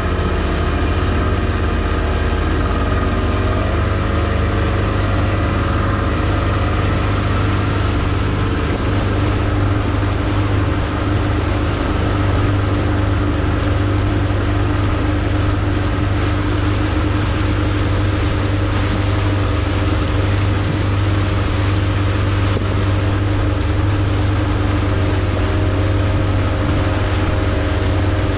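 A 40 hp outboard motor driving a small boat, running steadily under way, with water rushing past the hull. The engine note shifts slightly a few seconds in and again near the end.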